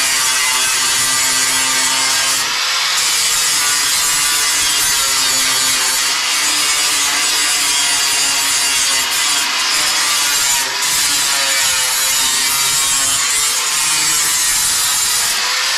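Angle grinder with a flap disc grinding the edges of sheet-metal fender pieces, a continuous grinding noise whose motor pitch rises and falls as the disc bears in and eases off.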